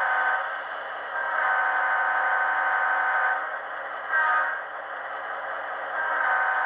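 Tsunami sound decoder in an HO-scale Walthers E9A diesel model sounding a grade-crossing horn sequence: a long blast ending about half a second in, a second long blast, a short blast about four seconds in, and a final long blast starting near the end.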